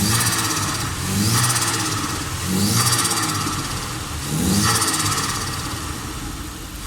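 Nissan CA18DET turbocharged four-cylinder engine revved in about four throttle blips, each followed by turbo flutter as the throttle snaps shut.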